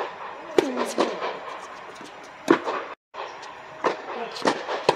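Tennis ball being struck by rackets and bouncing on an indoor hard court during a rally: a string of sharp pops at irregular spacing, each with a short echo from the dome. The sound cuts out briefly about three seconds in.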